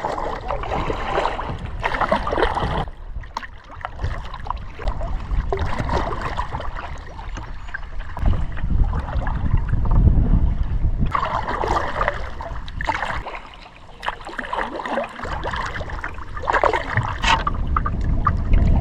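Kayak paddle strokes in lake water: repeated splashing and dripping as the blades dip and lift, over a low, uneven rumble.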